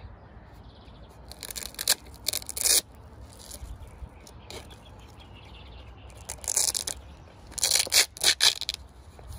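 Hook-and-loop (velcro) straps on a Cavallo Trek hoof boot being ripped open by hand: several short rips, a couple about two seconds in and a quicker run of them near the end.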